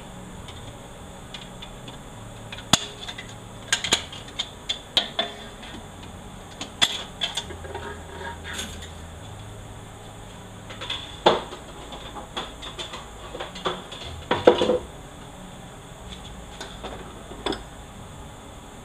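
Steel parts of a 4L80E automatic transmission clinking and clanking as they are worked apart by hand: scattered sharp metallic clicks at irregular intervals, with the loudest clanks about two-thirds of the way through.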